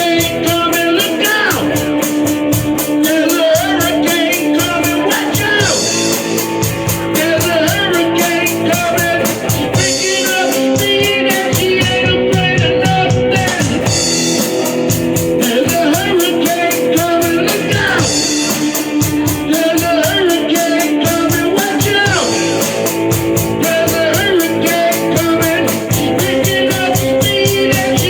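A rock song with guitar, drum kit and a singing voice, playing steadily at full volume.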